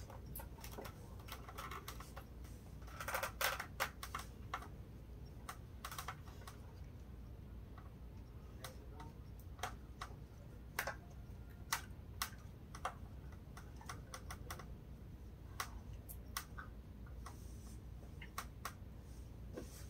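Scattered light clicks and taps from hands handling a football helmet's facemask and the mouthguard attached to it, bunched about three seconds in and then coming one at a time, over a low steady hum.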